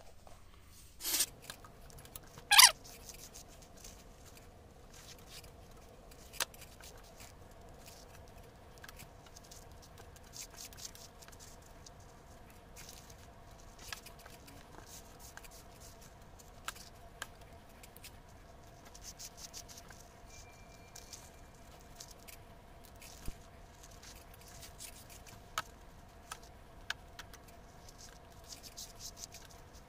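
Hands handling a leather pouch and pulling a faux-suede lace through its punched holes: faint scattered rustles, scrapes and small clicks, with two sharper clicks about one and two and a half seconds in.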